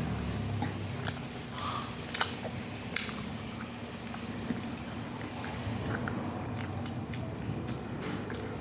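Close-up eating sounds: chewing instant cup noodles with meatball and egg, with a few sharp clicks about two and three seconds in.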